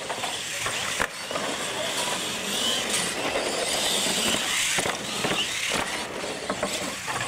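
R/C monster trucks racing on concrete: motors whining and tyres rolling on the pavement, with several sharp knocks as the trucks hit the ramps in the lane.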